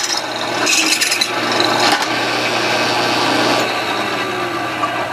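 Drill press running with a steady motor hum as its bit bores down into a metal pipe, grinding and scraping through the metal.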